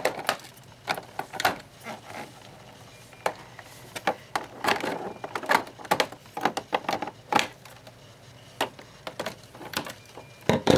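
Scissors snipping the ties that hold a toy figure in a clear plastic packaging tray: irregular sharp clicks and snips, with plastic being handled in between.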